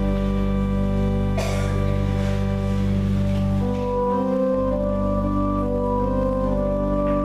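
Church organ playing slow held chords over a sustained bass, moving to new notes about three and a half seconds in.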